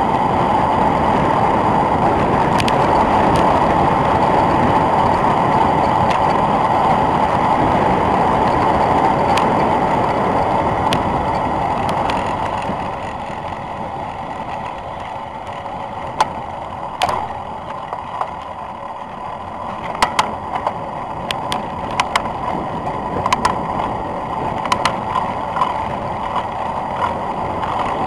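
Wind and tyre rush on a road bike descending at speed, loud and steady, falling away about halfway through as the bike slows at a junction. After that come scattered sharp clicks and knocks over the quieter rush.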